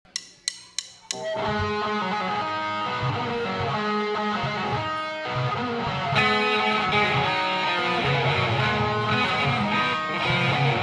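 Live band opening: four sharp count-in clicks, then electric guitars playing a melodic riff of single notes, with bass underneath.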